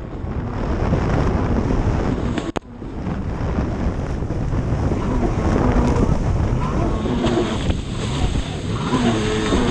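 Racing stand-up jet ski's engine running hard through rough water, buried in heavy wind buffeting on the microphone and the hiss of spray off the hull. The sound dips sharply for a moment about two and a half seconds in.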